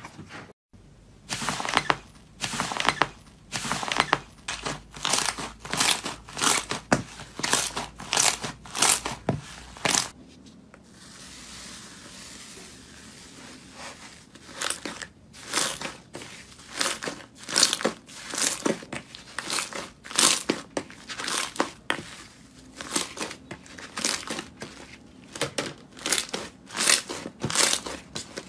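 Hands squishing, kneading and stretching slime: a dense run of wet pops, clicks and crackles as air pockets burst and strands tear. For a few seconds near the middle there is only a softer, steady hiss before the crackling resumes.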